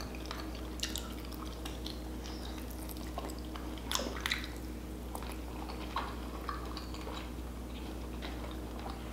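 Close-up chewing of a chicken wing dipped in ranch: soft wet mouth smacks and clicks, a little louder about four seconds in, over a steady low hum.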